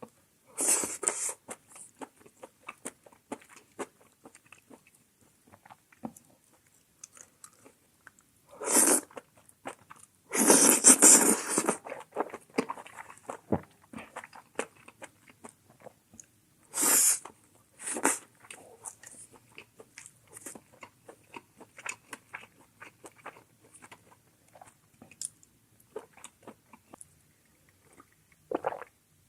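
Close-miked eating of a mala xiang guo meal with rice: steady chewing and crunching with many small wet mouth clicks. A few louder rushing bursts break in, the longest lasting about a second and a half near the middle.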